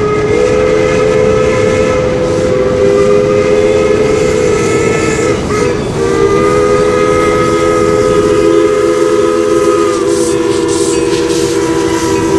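Steam locomotive chime whistle sounding a chord of several notes in one long blast, a brief break about halfway, then a second long blast.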